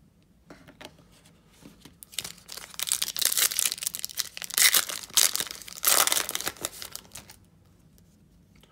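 A few light clicks of cards being handled, then the foil wrapper of a trading-card pack crinkling loudly as it is torn open by hand. The crinkling stops about seven seconds in.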